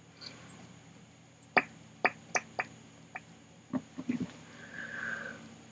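A woman's sneeze buildup: a string of short sharp clicks and catches, then a soft breathy inhale near the end.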